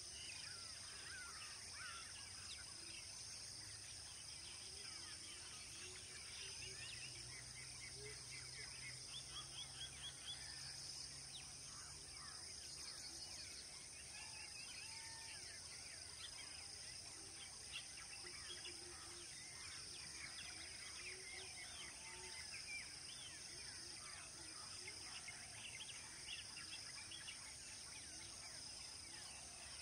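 Faint outdoor ambience of many small birds chirping over a steady high-pitched insect drone, with another insect trilling in repeated phrases a couple of seconds apart.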